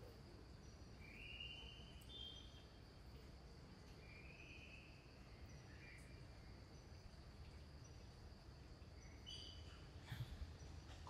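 Faint outdoor ambience: a steady high insect drone with a few short, faint chirps scattered through it.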